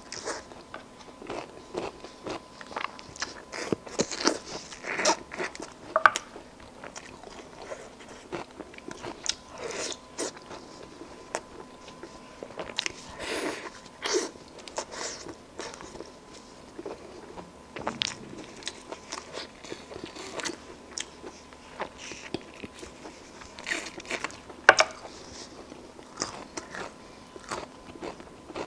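Close-miked eating: a person biting and chewing sauced lamb leg meat off the bone, with irregular crunches and wet smacks.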